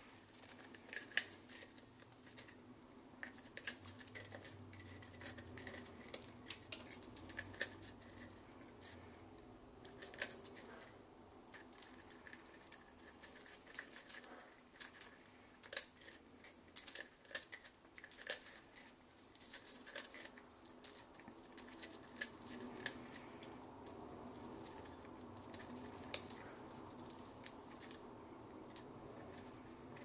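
Hyacinth macaw eating a peanut butter cookie, its beak biting and crunching off pieces in a long run of irregular small crisp clicks and crumbles.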